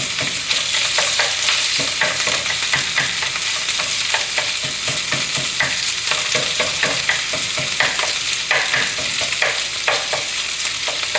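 Sliced pork shoulder sizzling in oil in a hot frying pan as it browns, a steady hiss broken by frequent short clicks and scrapes of the spatula turning the meat.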